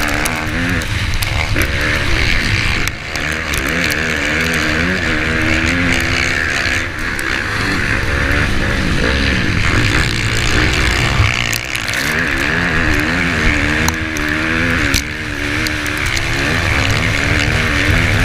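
Dirt bike engine at race speed, its pitch repeatedly rising and falling as the throttle is worked and gears change, over a heavy rush of wind on a helmet-mounted microphone, with scattered sharp ticks.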